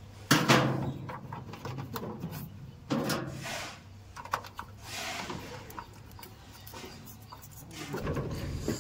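Handling noise of stiff insulated power cables being bent and pushed into an electricity meter's terminal block: rustling scrapes and light clicks in several bursts, the loudest about a third of a second in. A steady low hum runs underneath and grows louder near the end.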